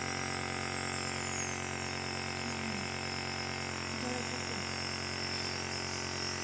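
Compressor nebulizer running steadily, nebulising medicine for a child's chest congestion: an electric buzzing hum from its motor with a high airy hiss of the mist.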